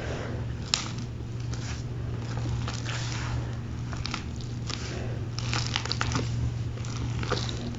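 A cake of gym chalk being crushed and crumbled by hand: irregular soft crunches and crackles, with one sharp snap under a second in.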